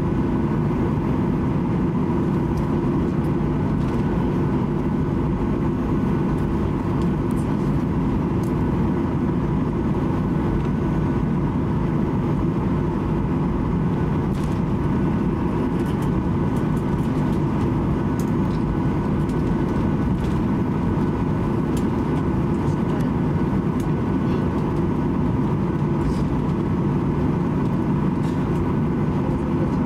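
Steady cabin noise inside a Boeing 737-800 taxiing, its CFM56 jet engines at idle: an even low rumble with a faint steady whine above it.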